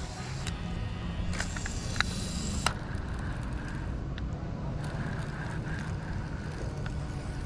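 A Zebco spincast reel being cranked to retrieve a lure: a few sharp clicks in the first three seconds or so, then a faint steady whir. Under it runs a steady low rumble of wind on the microphone.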